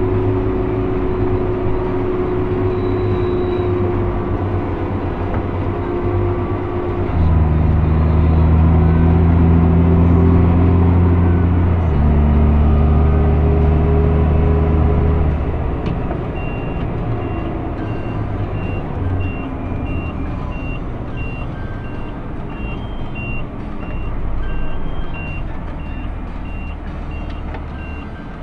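JCB Fastrac 3230 Xtra tractor's engine and drivetrain drone heard from inside the cab while driving on the road. The engine note drops in pitch and gets louder about 7 seconds in, shifts again around 12 seconds, and eases off a few seconds later. From about halfway through, a high-pitched beep repeats at an even pace, roughly once a second.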